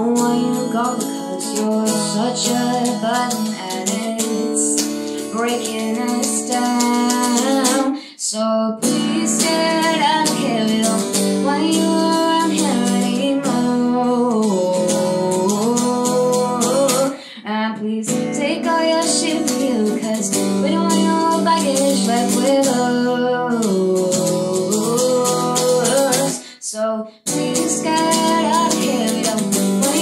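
A woman singing a slow melody while accompanying herself on an electric guitar played through an amp, with three brief pauses between phrases.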